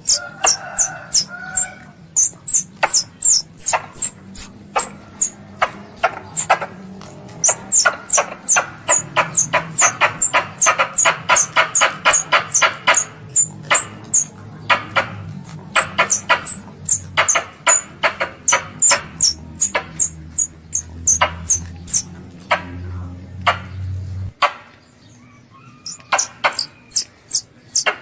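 Squirrel lure call: long series of sharp, high chirps, each dropping quickly in pitch, several a second, with a faster, denser run in the middle. A low hum runs underneath and stops about 24 seconds in.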